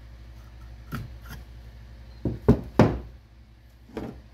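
Knocks of a steel axe head and its wooden handle being handled on a wooden workbench as the head is pulled off the handle after a test fit and set down: a handful of sharp knocks, the loudest two close together just past the middle.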